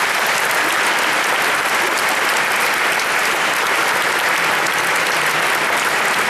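A crowd applauding, a dense, steady clapping of many hands.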